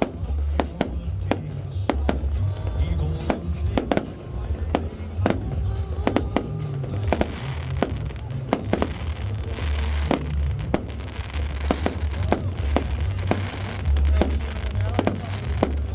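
Fireworks display: a quick, irregular run of sharp bangs with crackling stretches about seven and ten seconds in, over music with a heavy bass.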